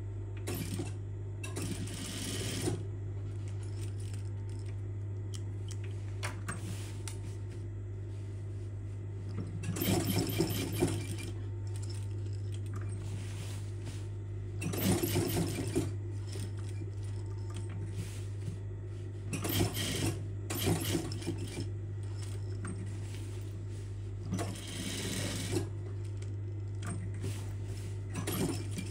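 Sewing machine stitching in several short runs a few seconds apart, over a steady low hum.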